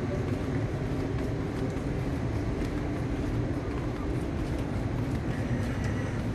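Steady low rumble of city background noise with a faint engine-like hum running through it.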